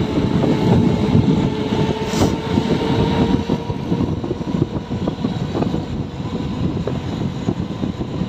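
Motorised two-wheeler riding at speed: a steady engine hum whose pitch rises slowly, under a heavy rumble of wind on the microphone.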